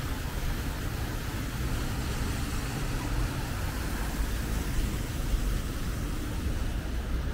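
Steady city street ambience with road traffic running.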